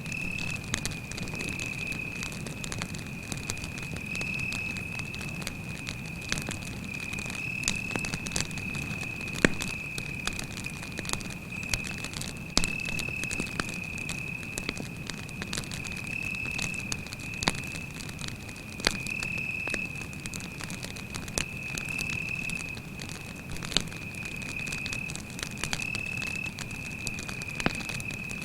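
Campfire burning with a low rush of flame and irregular sharp crackles and pops of burning wood. Over it a cricket chirps in a continuous high trill that swells and dips.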